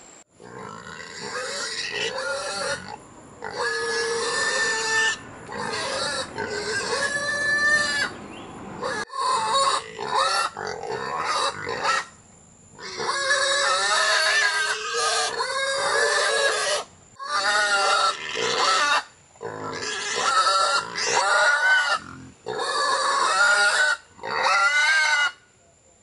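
Pig squealing again and again: long, wavering cries of a second or two each, with short breaks between them.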